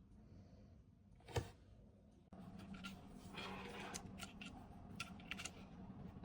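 Quiet handling of packaging and small items: one sharp tap or click about a second in, then soft rustling and a run of small clicks.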